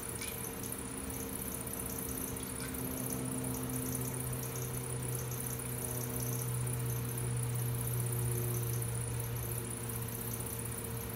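Brent electric potter's wheel running with a steady motor hum while wet hands shape a spinning clay cylinder. There is a short wet splash at the start as a hand dips into the water bucket.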